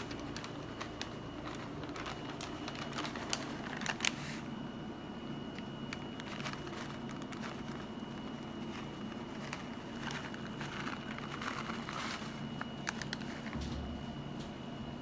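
Plastic bag crinkling and light rustling as shredded cheese is sprinkled over a casserole, in uneven clusters with scattered clicks, over a steady background hum.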